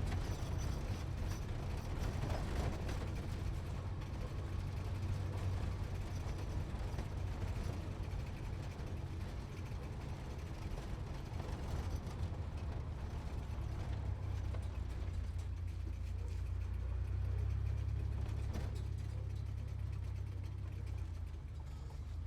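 Sports car engine giving a low rumble while driving, steady and deep, swelling slightly a little past the middle.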